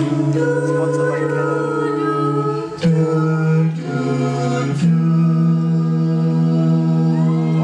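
Mixed-voice a cappella group singing long held chords through handheld microphones, with a low sustained bass note under the harmony. The chord changes about three seconds in and again about five seconds in.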